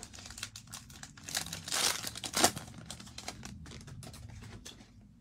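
Foil wrapper of a Mosaic football trading-card pack crinkling and tearing open, with cards rustling as they are handled. The rustles grow louder about two seconds in.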